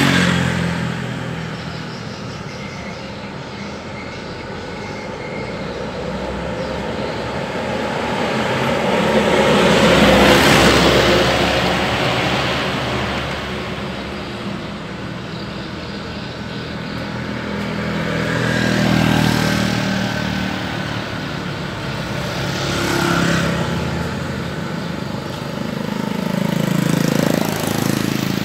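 Road traffic: vehicles passing one after another on the street, each swelling and fading over a few seconds, the loudest pass about ten seconds in, over a steady background rumble.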